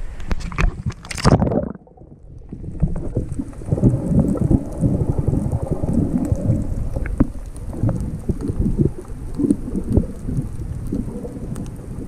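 Water splashing over a camera as it goes under the sea surface. After that comes muffled underwater sound from about two seconds in: irregular low knocks, rumbles and bubbling from water moving around the submerged camera and a snorkeler nearby.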